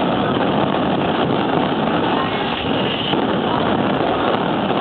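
Aerial fireworks display heard as a steady, dense rumble of many overlapping shell bursts, with no single bang standing out.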